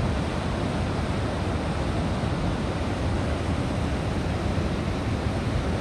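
Steady rushing of a fast mountain stream's white water running through a narrow rock gorge.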